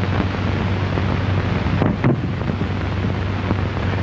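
Steady hiss and low hum of a worn 1930 optical film soundtrack, with one brief scuffling noise about two seconds in.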